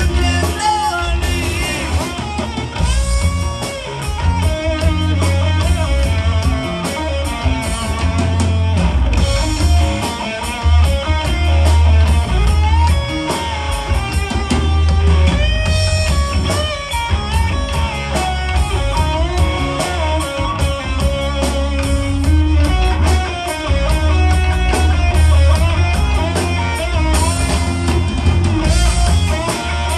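A live rock band plays an instrumental passage: electric guitar lines with bent notes over a driving drum kit and a heavy low end.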